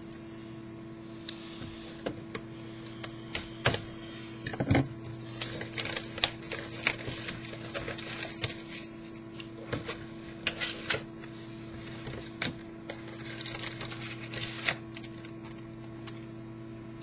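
Hands opening trading-card packaging and handling the cards: scattered clicks, taps and short bursts of crinkling, over a steady low electrical hum.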